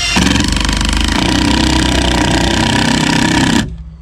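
Power tool running with a rapid hammering action under load, a fast even chatter, that cuts off abruptly near the end.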